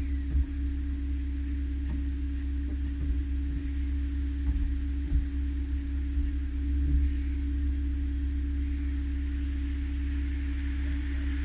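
A steady low hum with one constant tone underneath it. Near the end, the road noise of an approaching car starts to rise.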